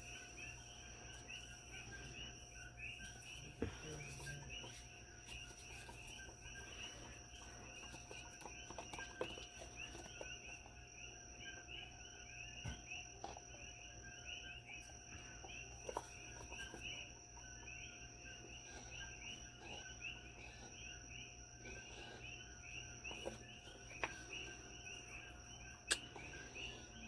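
Faint, steady chirping of insects, several short chirps a second, with a low hum and a few light clicks and taps.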